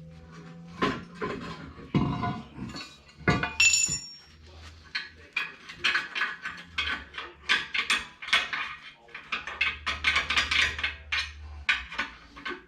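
Steel parts and hand tools clinking and clanking while a rusty grader blade assembly is worked apart: a rapid run of short metal knocks and rattles. About four seconds in, one strike rings on briefly.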